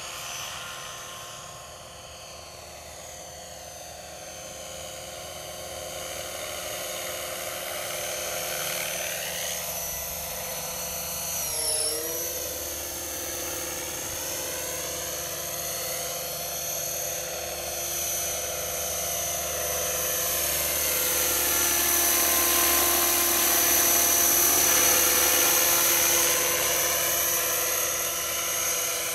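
Scale MD 500D RC helicopter in flight: a steady high-pitched whine over rotor hiss, swelling and fading as it moves closer and farther. The pitch dips briefly about twelve seconds in, and it grows loudest in the last third.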